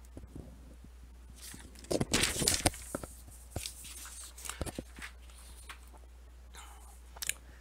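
Paper handling: a printed sheet rustling and being shifted on a table in a couple of short bursts, followed by a few light clicks and taps, over a low steady hum.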